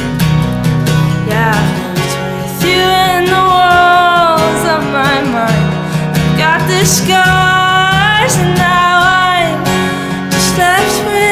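Strummed acoustic guitar accompanying a woman singing long, sliding held notes that rise and fall, with a short break about two-thirds of the way through.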